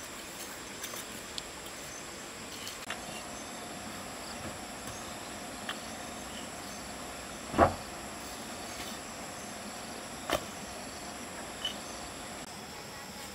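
Steady background of insects chirring, broken by a few sharp knocks and clicks, the loudest a little past halfway.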